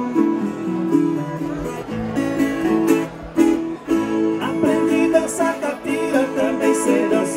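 Acoustic guitar playing, notes picked and strummed over chords, with a run of higher notes in the second half.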